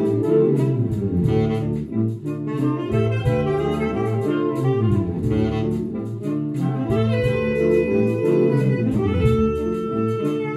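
Saxophone orchestra playing live: many quick, short notes in the low parts, with a long held note entering about seven seconds in.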